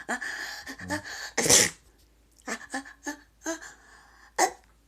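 A single sharp sneeze about a second and a half in, followed by a few softer short sounds.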